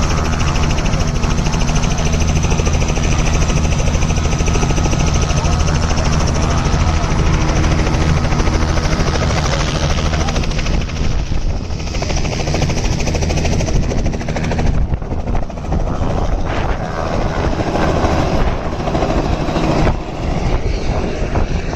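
Small two-bladed helicopter's rotor and turbine running with a steady, rhythmic beating drone. About fifteen seconds in, the steady tone gives way to a rougher, gusting noise as the helicopter flies low over the field.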